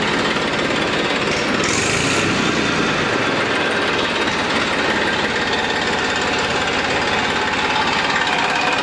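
Massey Ferguson 241 DI tractor's three-cylinder Simpsons diesel engine running at idle with a steady diesel clatter. The seller takes the sound as a sign of a healthy engine.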